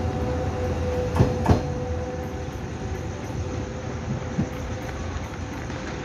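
TRA EMU500-series electric multiple unit pulling away, its GTO-VVVF traction inverter giving a steady whine over the running rumble, fading as it leaves. Two sharp wheel clacks over rail joints come about a second in, with fainter ones later.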